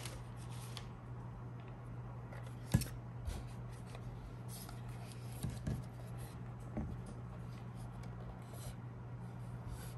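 Handling noise from a plastic Hansshow instrument cluster display being turned over in the hands: light rubs, taps and clicks, the loudest a sharp knock about three seconds in, over a steady low hum.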